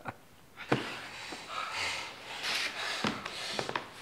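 A man breathing hard in rough breaths, with a sharp knock a little under a second in and a few more knocks near the end.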